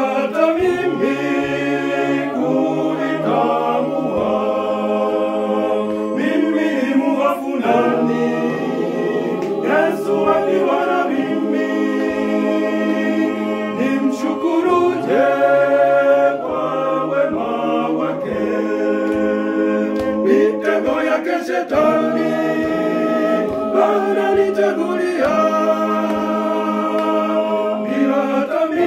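Choir of young men singing a Swahili song together in several voice parts.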